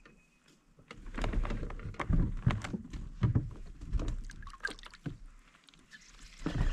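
Irregular knocks and clicks of gear and hands on a plastic fishing kayak, with water sloshing and splashing against the hull, as a hooked crappie is played in on a light rod. These start about a second in.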